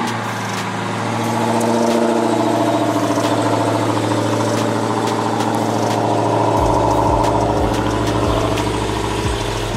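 Supercharged 6.2-litre Hemi V8 of a 2015 Dodge Challenger Hellcat on a cold start, running at a high idle just after firing up. It cuts out near the end. This is a recurring fault: the engine starts and then shuts right off, with the check engine light on.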